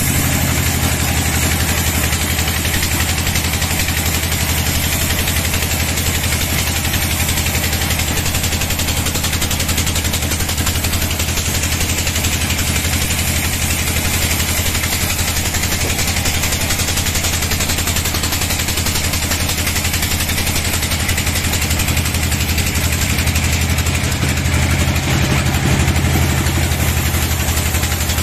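Sawmill bandsaw running steadily as it cuts through a teak log: a continuous low machine hum under the hiss of the blade in the wood.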